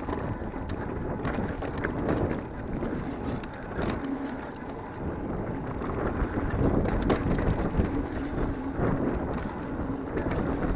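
Mountain bike riding fast down a rocky dirt trail. Wind rushes over the handlebar-mounted microphone, and the tyres rumble on dirt and stones, with frequent sharp knocks and rattles as the bike hits bumps.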